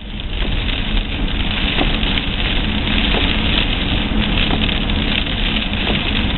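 Steady car cabin noise while driving: engine running with road and tyre noise, and a low rumble underneath.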